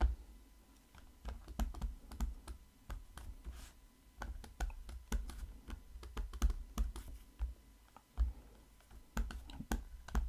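Stylus tapping and scratching on a tablet screen during handwriting: a quiet, irregular string of light clicks with soft low knocks.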